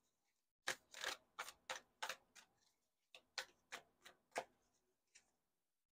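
Faint, irregular clicks and taps of a tarot deck being handled, in two short runs with a last single click near the end.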